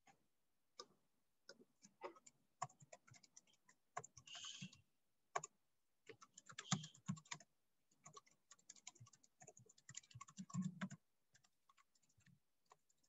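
Faint typing on a computer keyboard: irregular runs of keystrokes with short pauses.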